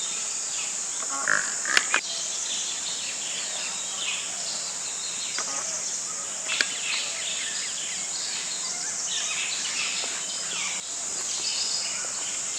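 Insects buzzing in a steady high drone, with scattered bird chirps and a couple of sharp knocks, one about two seconds in and one past the middle.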